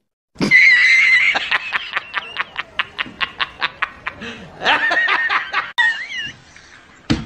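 High-pitched snickering laughter: a long run of quick, evenly spaced 'heh' pulses, about six a second, fading as it goes, then a louder laugh about halfway through.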